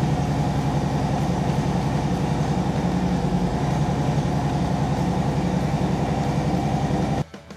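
Harley-Davidson Road Glide ST's Milwaukee-Eight 117 V-twin engine running steadily with an even, rapid pulse. It cuts off abruptly near the end.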